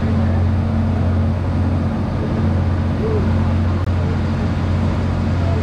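Special operations boat's engines running at a steady, even drone under a constant rushing noise.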